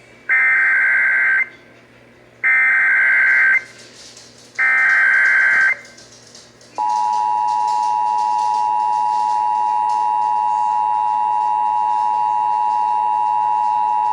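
Emergency Alert System activation for a severe thunderstorm warning: three one-second bursts of warbling digital data tones (the SAME header), each a second apart. About a second after the third, the steady two-tone EAS attention signal starts and holds.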